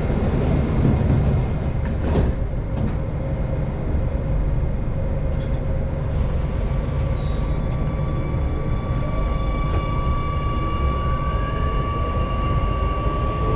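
Singapore MRT Circle Line train doors sliding shut with a knock, then the train pulling away from the platform, its electric traction motors whining up in pitch as it gathers speed over a steady rumble.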